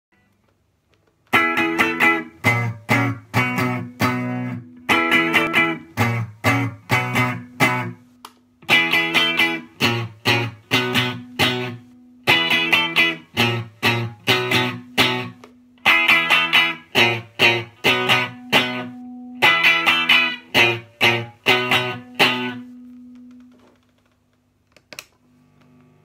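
1974 Fender Telecaster Custom electric guitar playing a repeated riff of short, choppy chord strums, in phrases of about three and a half seconds, starting about a second in. It ends on a note left to ring and fade, followed by a few soft plucks near the end.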